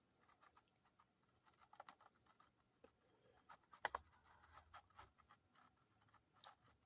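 Near silence with faint, scattered small clicks and taps, one sharper click about four seconds in.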